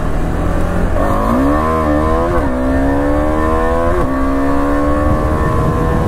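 KTM 390's single-cylinder engine accelerating hard from a stop. Its pitch climbs, drops twice at upshifts, then rises more slowly in the higher gear.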